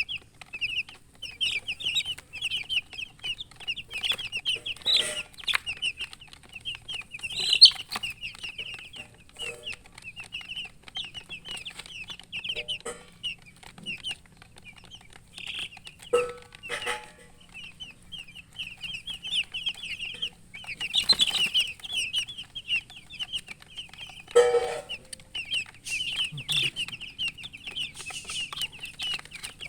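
Newly hatched chicks peeping without pause: a dense chorus of short, high, overlapping chirps. A few short knocks are heard in between.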